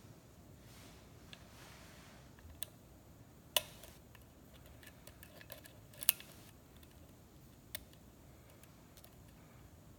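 Lock picking in a Schlage-style KIK pin-tumbler cylinder: scattered light metallic clicks and ticks as the pick works the pins under tension, with two sharper clicks about three and a half and six seconds in.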